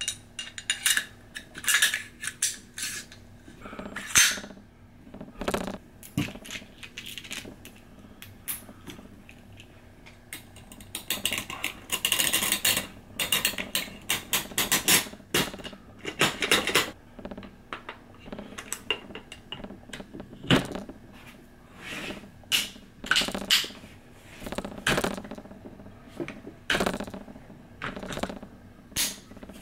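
Metal parts of a SIG 716 rifle clicking and clacking as it is put back together by hand: scattered sharp clicks and knocks, with a busier stretch of clatter about midway.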